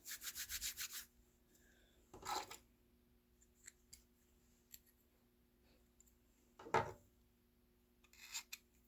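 A screwdriver packing cotton balls down into the metal Zippo lighter insert, scraping and rubbing: a quick run of about eight scrapes in the first second, then a few separate scratchy rubs and small clicks.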